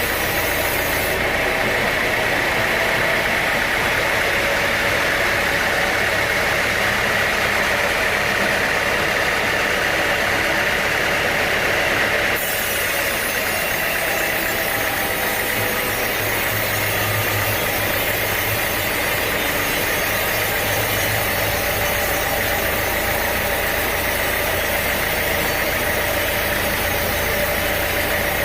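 Sawmill machinery running steadily: a loud engine-like drone with a steady high whine. The sound changes abruptly about 12 seconds in.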